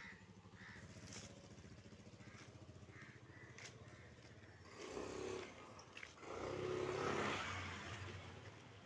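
Motorcycle engine running with a steady low pulse, swelling louder briefly about five seconds in and again, loudest, from about six and a half to eight seconds.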